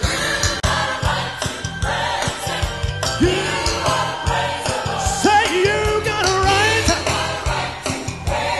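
Live gospel praise song: a praise team of several voices singing over instruments with a steady beat.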